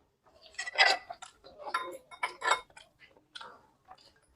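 Eating sounds close to the microphone: a string of short mouth clicks and smacks from chewing, thickest in the first three seconds and thinning out near the end.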